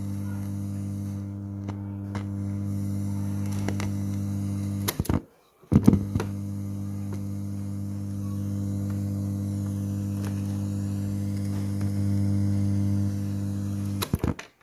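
Toshiba RT-SX26 radio-cassette, powered up with its board out, putting a steady mains hum through its speakers. It cuts off with clicks about five seconds in, comes back with a click under a second later, and cuts off again near the end.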